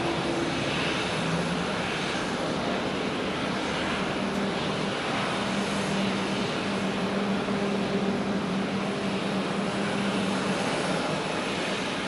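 Jet airliner engines running, a steady rushing noise with a low hum beneath it.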